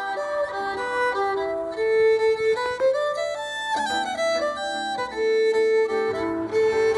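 Instrumental background music with a fiddle playing the melody; a lower accompanying part comes in near the end.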